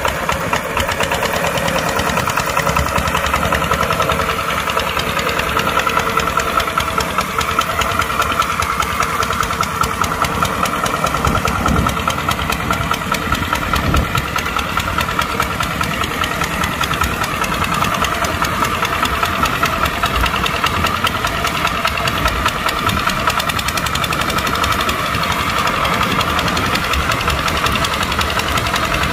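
Kubota tractor's diesel engine running steadily while plowing, with a steady whine alongside it from about two seconds in.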